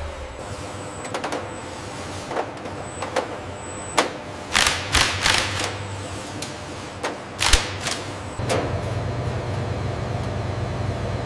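Factory machinery: a steady mechanical hum with a scatter of sharp clicks and metallic knocks, thickest around the middle. The low hum gets stronger about two-thirds of the way through.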